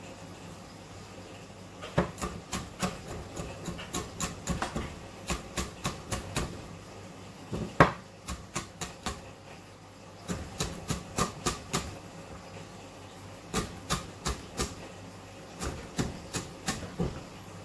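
Kitchen knife chopping on a cutting board: runs of quick sharp taps, several a second, broken by short pauses, with one louder knock about eight seconds in.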